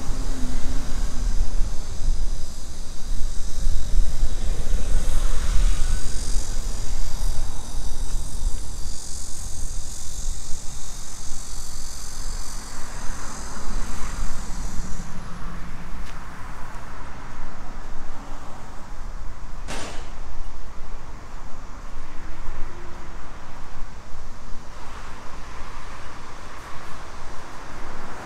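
Outdoor street ambience with road traffic and a strong low rumble, overlaid by a high steady buzz that stops suddenly about halfway through. A single sharp click comes about two-thirds of the way in.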